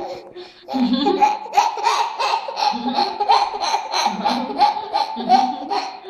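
A toddler laughing hard in quick repeated bursts of belly laughs and giggles, with a brief pause just after the start.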